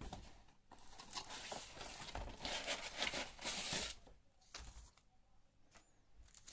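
Plastic packaging crinkling and rustling as it is handled, for about three seconds, then a few faint clicks.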